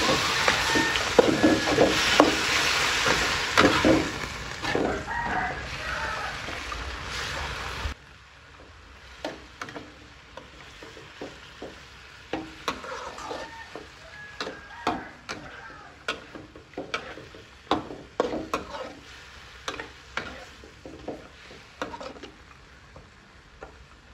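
Metal spatula stirring and scraping pork rib pieces around a steel wok over high heat, the meat sizzling loudly in the oil. About eight seconds in, the sizzle drops away suddenly, leaving quieter sizzling and the clicks and scrapes of the spatula against the wok.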